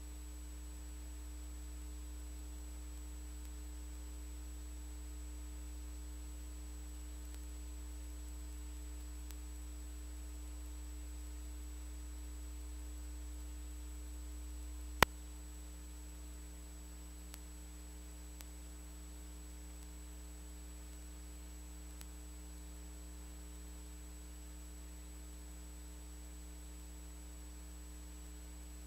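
Steady low electrical hum with a faint hiss, and a single sharp click about halfway through.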